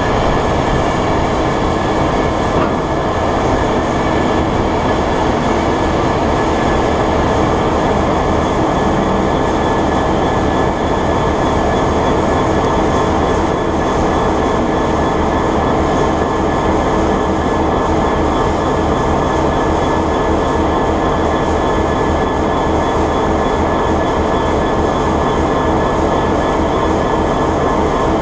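Diesel locomotive standing with its engine idling close by: a loud, steady engine noise with a constant high whine over it.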